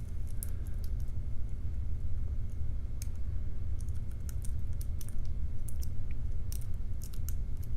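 Small irregular metallic clicks and ticks of a lock pick working the pins inside a challenge lock during picking, over a steady low hum.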